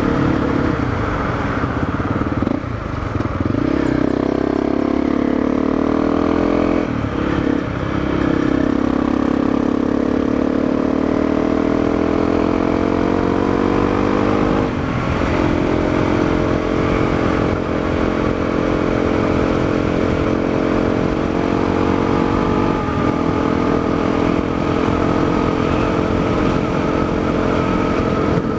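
Honda CRF250L's single-cylinder four-stroke engine, breathing through an FMF Q4 slip-on muffler, pulling under load uphill. Its pitch climbs and drops back at three upshifts in the first half, then holds fairly steady at speed.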